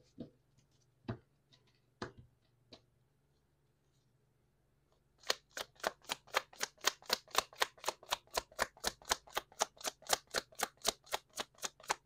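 A tarot deck being shuffled by hand: a few scattered card taps, then from about five seconds in a rapid, even run of card slaps, about four a second.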